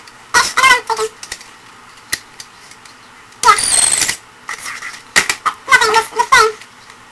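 A teenage girl's voice played back at double speed: high-pitched, unintelligible chatter in short bursts, with a brief hissing burst about halfway through.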